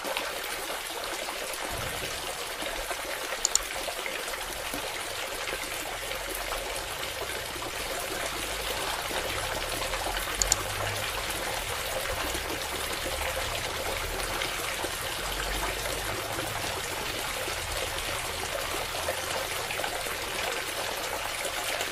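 Steady stream of water pouring from the outlet pipe of a small homemade borewell pump and splashing onto the ground. A couple of short clicks sound over it, a few seconds in and again near the middle.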